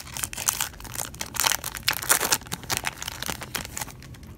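Foil wrapper of a Pokémon Jungle booster pack being torn open and crinkled by hand: dense, irregular crackling that is loudest in the middle and eases off near the end.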